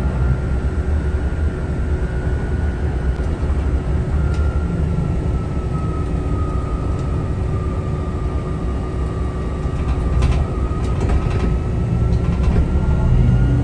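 City bus driving, heard from inside: a steady low rumble of drive and road noise with a whine that sinks a little in pitch and climbs back, and a few light clicks or rattles about ten seconds in.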